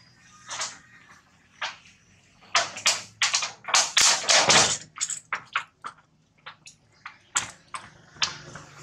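Young long-tailed macaque eating a banana: a string of short, wet smacks and bites from its mouth, densest and loudest about three to five seconds in.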